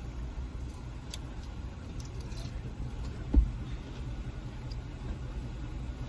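Low steady rumble of an idling car, heard with a few light clicks and one short thump about three and a half seconds in.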